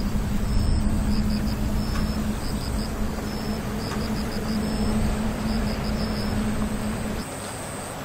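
A steady low mechanical hum over rumbling wind-like noise, with short high chirps repeating; the hum stops near the end.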